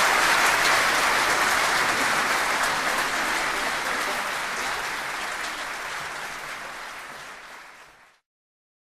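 Audience applauding, a dense patter of many hands that slowly fades away and is gone about eight seconds in.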